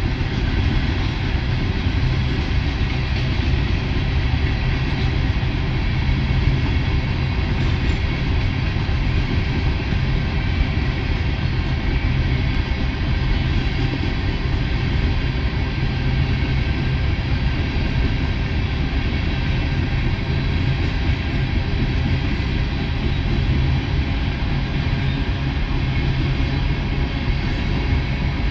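Train of empty coal hopper cars rolling past, a steady, continuous rumble of wheels on rail with no breaks or sudden sounds.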